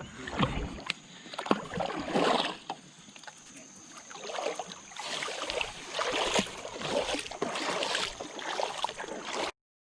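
Small boat being paddled on a river: irregular splashing swells of water noise with scattered light knocks, over a faint steady high hiss.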